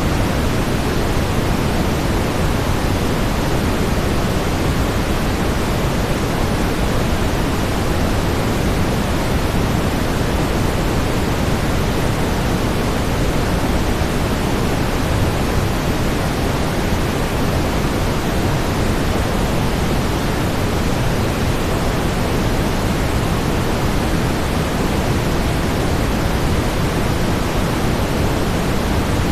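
Steady synthetic brown noise: a constant, even hiss-like rumble weighted toward the low end, with no changes.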